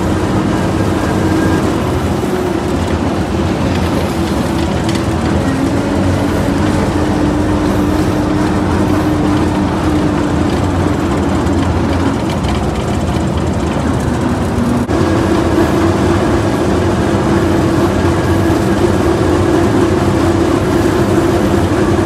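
A heavy vehicle's engine running loud and steady as it drives on the road; its pitch steps up about 15 seconds in.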